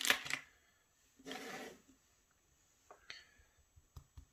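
Small metal clicks and scrapes of a lock cylinder's plug and parts being handled as it is taken apart, then near the end a quick run of light taps, about four a second.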